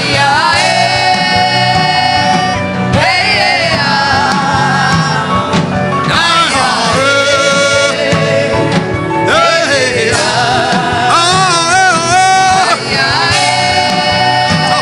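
Worship music: a singing voice holding long, wavering notes and sliding between pitches over a steady instrumental accompaniment.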